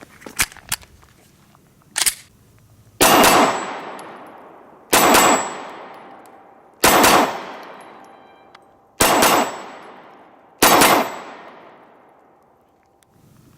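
Glock 26 Gen 4 9mm subcompact pistol firing five quick double taps about two seconds apart, each pair of shots followed by a long echo. A few light clicks come first.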